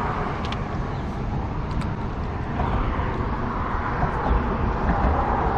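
Steady, rumbling outdoor background noise that is heaviest at the low end, with no distinct events.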